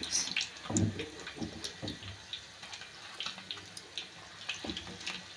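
Breaded chicken nuggets deep-frying in a wok of hot oil: a faint steady sizzle with scattered irregular crackles and pops.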